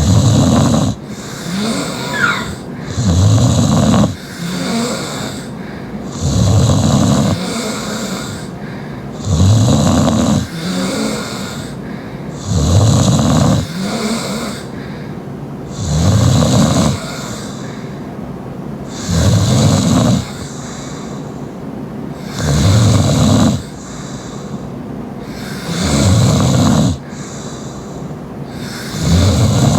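Heavy open-mouth snoring from a sleeping girl: a loud, low rasping snore about every three seconds, each lasting about a second, with a softer breath between snores.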